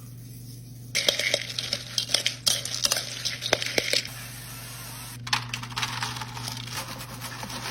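Pumpkin seeds rattling and clinking against a metal pan as they are stirred with salt. There are two bouts of rattling, one starting about a second in and one after about five seconds, over a steady low hum.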